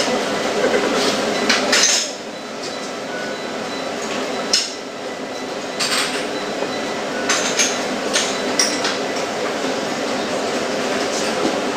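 Restaurant dining-room background: a steady hum of room noise with scattered sharp clinks and knocks of dishes and cutlery.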